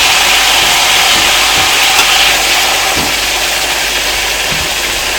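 Three marinated fish frying in hot oil in a wok: a loud, steady sizzle with scattered pops and crackles, easing slightly after about two seconds.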